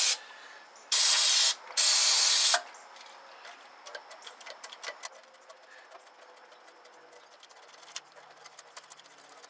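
Aerosol can sprayed onto a carburetor's choke linkage in two short hissing bursts, then many small metallic clicks as the sticky linkage is worked back and forth to free it up.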